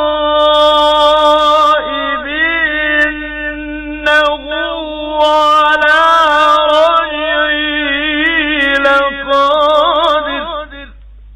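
A man reciting the Quran in the melodic, drawn-out tajwid style, holding long notes with wavering ornamental turns in pitch. The voice stops shortly before the end.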